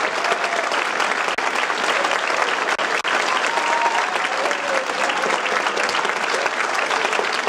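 Concert audience applauding, with loud, dense, steady clapping.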